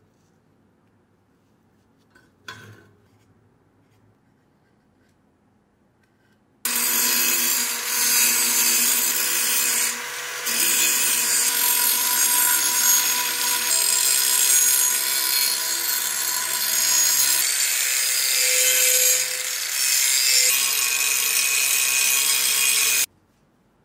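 Near silence with one light knock about two and a half seconds in; then, about seven seconds in, an electric angle grinder starts grinding the steel blade of an old knife clamped in a vise, running steadily with a few brief dips for about sixteen seconds before cutting off abruptly near the end.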